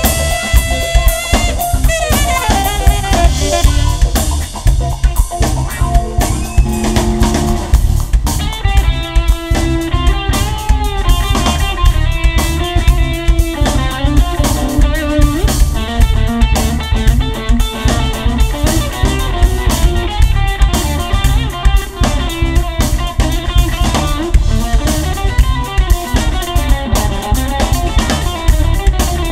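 Live band playing: drum kit, bass, keyboards and electric guitar, with a saxophone line over the band near the start.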